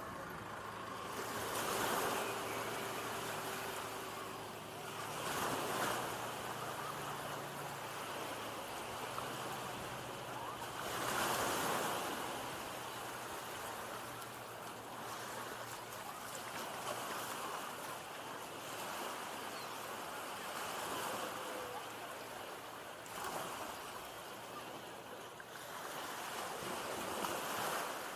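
Small sea waves breaking and washing up the sand at the water's edge. The surf swells and eases every few seconds, loudest about two, six and eleven seconds in.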